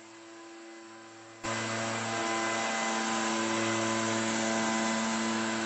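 Backpack leaf blower running with a steady engine hum. About a second and a half in it turns abruptly louder, adding a strong rush of air, and runs on steadily.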